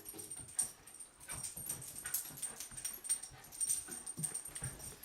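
A dog's faint whimpers and short scuffling sounds as it wrestles with a cat.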